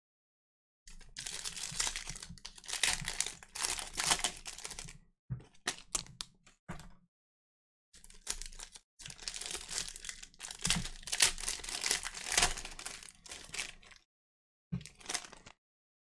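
Plastic wrapping of trading card packs being torn open and crinkled, in crackling bursts with two short pauses.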